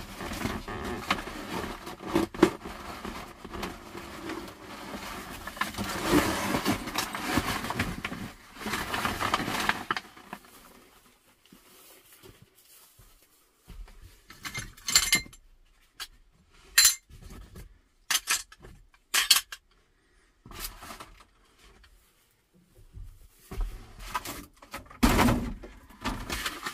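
Debris and broken glass being cleared out of a truck cab by hand: a dense rustling clatter for about the first ten seconds, then scattered separate clinks and knocks.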